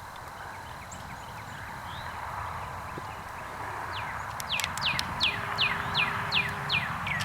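A bird calling in a quick series of short, falling whistled notes, about three a second, over a steady background hiss, with a few sharp clicks among the notes.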